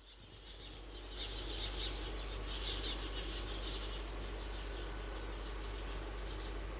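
Rapid, regular high-pitched chirping from a small animal, about five short chirps a second, loudest in the first few seconds and fading toward the end, over a steady low hum.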